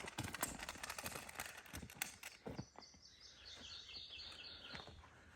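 A bird sings a quick run of short repeated chirps, starting about halfway through. Before it come scattered soft clicks and rustling.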